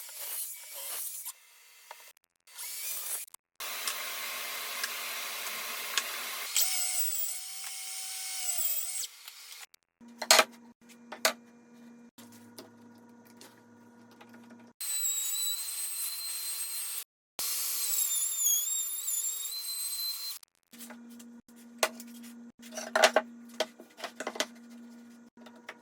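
A power tool cutting into wood in several short, separately cut segments, each a dense high-pitched hiss with a whine that wavers in pitch. Between them come stretches of a steady low hum with sharp clicks and knocks.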